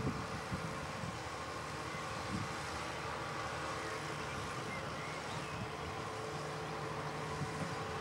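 Tractor engine running steadily while it drives a Vicon round baler picking up cut grass, with a steady whine from the machinery. Wind buffets the microphone briefly at the start.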